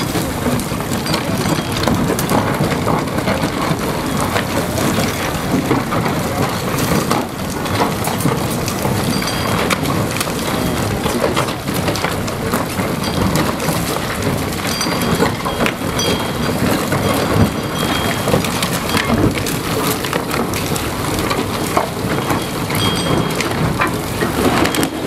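Steady rumbling from inside the rock as the Herrenknecht tunnel boring machine cuts toward the portal, with many small cracks and clatters of the shotcrete wall crumbling and bits falling. It is the sign that the machine is about to break through.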